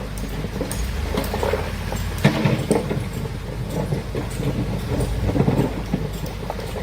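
Heavy excavator's diesel engine running steadily under load, with irregular knocks and clatter from the working machine.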